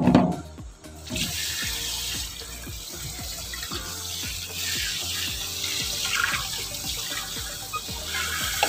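A knock as a plastic colander is set down in a stainless-steel sink, then about a second in the kitchen tap runs steadily, its stream splashing over diced vegetables being rinsed in the colander.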